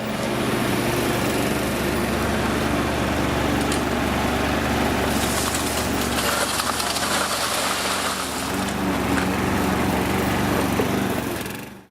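Engine of a miniature-railway locomotive running steadily under way, its pitch shifting a little past the middle.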